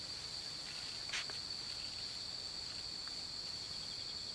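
Night insects trilling in a steady, unbroken high-pitched chorus, with a brief soft rustle about a second in.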